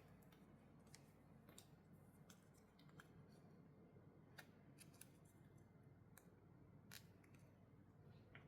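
Faint, irregular clicks and light crinkles of a watch box and its packaging being handled, about a dozen over the stretch, over a steady low hum.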